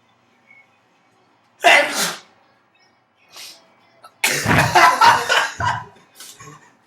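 A person sneezes loudly once, about a second and a half in, a sneeze brought on by tickling the nose with a tissue. A longer, choppy burst of voice follows about four seconds in and lasts about a second and a half.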